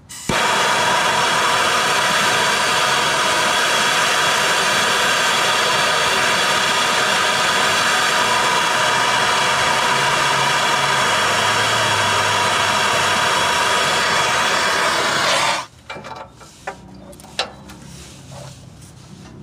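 MAP-Pro gas torch burning with a loud, steady roar as it heats a rusted, seized exhaust flange bolt to free it. The flame cuts off suddenly about fifteen seconds in, followed by a few light metallic clicks.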